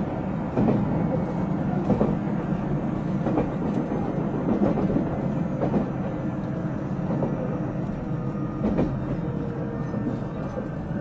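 JR Central 373 series electric train running, heard from inside the car: a steady wheel-and-rail rumble with rail-joint clacks about every second and a half.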